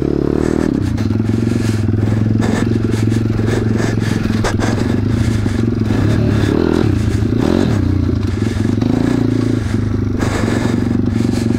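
A pit bike's YX 180cc single-cylinder four-stroke engine running while being ridden, its pitch rising and falling a little with the throttle. A few sharp clattering knocks come from the bike, twice in the first half.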